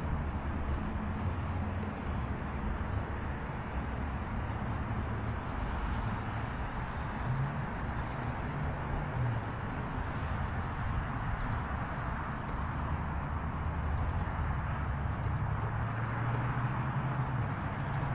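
Steady wind rumble on the microphone, with the thin, faint whine of a small electric RC plane's motor flying at a distance, fading out about halfway through.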